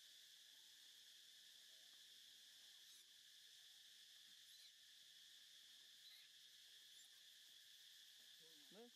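Faint, steady chorus of insects, such as crickets, with a short call that bends up and down in pitch just before the end.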